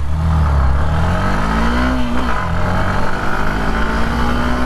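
Hero Xtreme 160R's single-cylinder engine accelerating hard from a standstill. The pitch rises, drops sharply a little over two seconds in at a gear change, then climbs again.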